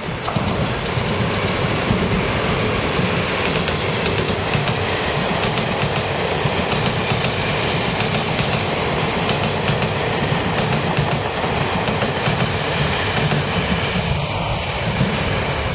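Taiwan Railway Fu-Hsing passenger train, hauled by electric locomotive E407, running past on the rails: a loud, steady rumble of steel wheels with clickety-clack over the rail joints as the coaches go by.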